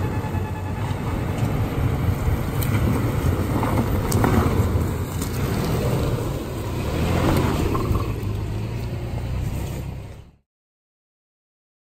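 Toyota 4Runner's 4.0-litre V6 engine running under load as the truck crawls up a rutted dirt hill, with tyres crunching and scraping over dirt and gravel. The sound cuts off suddenly about ten seconds in.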